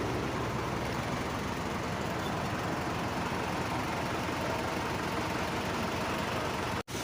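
Concrete pump's diesel engine running steadily during a pour, with a dense mechanical noise over a low steady hum. The sound cuts out for a moment near the end.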